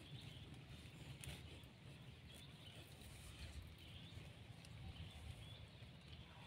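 Near silence: faint rural outdoor ambience with scattered faint, short bird chirps and a low, steady rumble.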